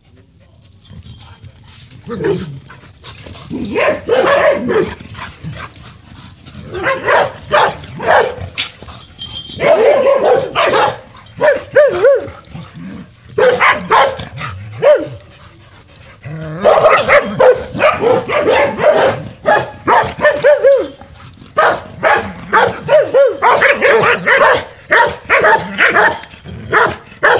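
Akitas and Rottweilers barking at each other across a fence in loud, rapid volleys with short lulls between them: boisterous fence play rather than a fight, as the owner sees it.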